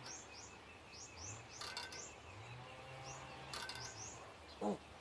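Small birds chirping over and over, short high rising chirps a few times a second. Two brief rustles come in the middle, and a short low grunt-like sound near the end is the loudest moment.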